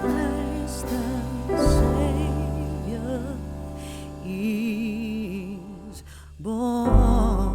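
Background music: a song with a wavering vibrato melody line over a bass and instrumental accompaniment, easing down in level and swelling again near the end.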